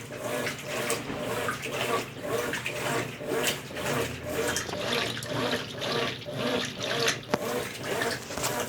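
Consul Facilite 10 kg washing machine in its wash stage, agitating a load of bed and bath linens so the water sloshes in a steady rhythm about twice a second.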